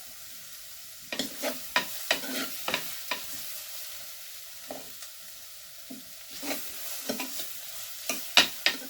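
Sliced onions sizzling in hot coconut oil in a clay pot (manchatti) as they sauté down, with a steady hiss. About a second in, and again in the second half, they are stirred in short scraping strokes against the pot, the loudest near the end.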